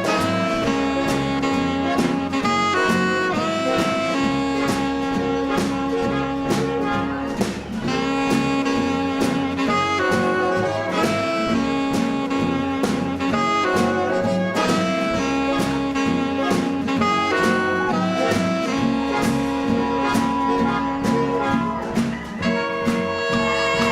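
Live swing dance band playing an up-tempo jazz number, with saxophones and brass over a steady beat.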